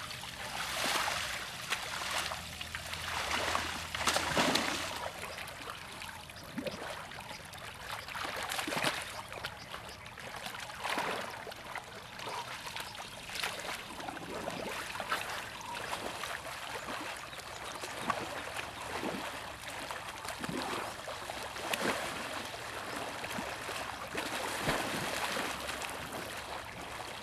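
Water splashing and sloshing as baby Asian elephants wade, kneel and roll in shallow muddy lake water: irregular splashes over a steady watery hiss, loudest about a second in and again around four seconds in.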